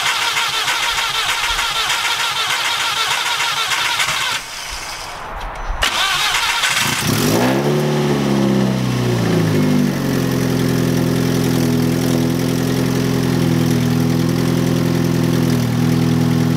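VW 1.8T four-cylinder engine cranked on the starter with its ignition coils unplugged, so it does not fire; the cranking only pumps oil to the new turbo. It runs in two long cranks with a brief pause about four seconds in. The second crank settles into a steady, even drone that lasts until the end.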